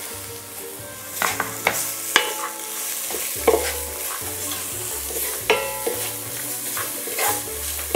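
Sliced red onion sizzling in hot ghee and spices in an enamelled cast-iron Staub pot, stirred with a wooden spatula that knocks and scrapes against the pot every second or so over a steady hiss of frying.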